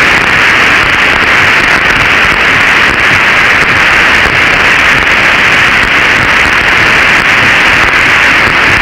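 Steady radio static: the loud, even hiss of the open air-to-ground radio channel from the Mercury capsule, thin and midrange-heavy, with no voice on it.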